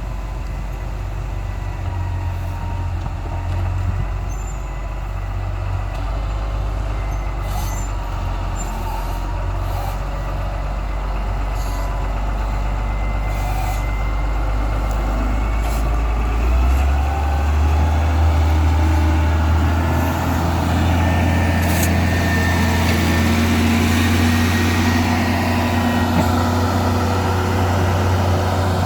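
Heavy diesel vehicle engine running under load; its note steps up about two-thirds of the way through and grows slowly louder.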